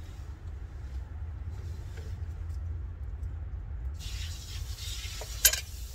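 Wind rumbling on the microphone. About four seconds in, a steady hiss joins it, and near the end there is a single sharp knock.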